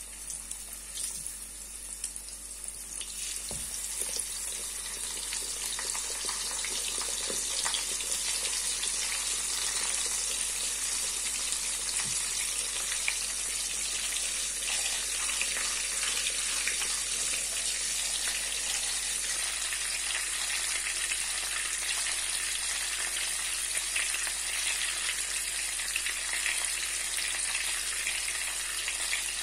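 Floured trout fillets frying in hot oil in a frying pan: a dense sizzle full of fine crackles, growing louder over the first several seconds and then steady.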